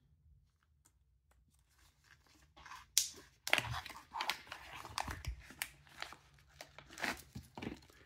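Small clear plastic bag crinkling and crackling as it is pulled open and a watch is slid out of it. The crackles are irregular, beginning about two and a half seconds in, with a sharp snap just after.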